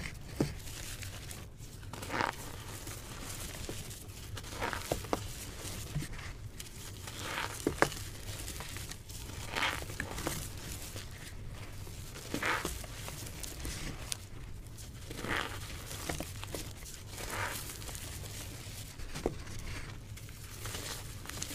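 Reformed gym chalk blocks being crushed and crumbled by hand in loose chalk powder: a soft, dry crunch every two to three seconds, some with small sharp snaps, over a low steady hum.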